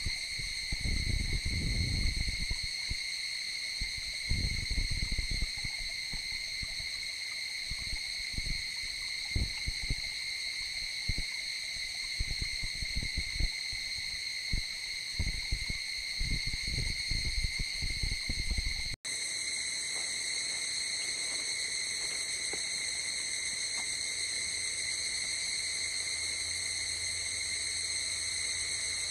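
Steady chorus of night insects, a continuous high-pitched shrill. For the first two-thirds, gusts of wind thump on the microphone. About two-thirds in there is a sudden cut, and the chorus continues without the wind.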